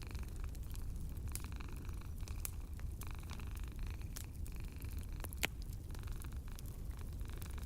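Wood fire crackling with scattered sharp pops, one louder pop about five and a half seconds in, over the steady low purring of a cat.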